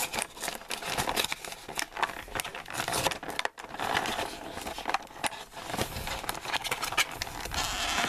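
Cardboard toy packaging being handled and torn open by hand: crackling, rustling and tearing, with a short pause about three and a half seconds in.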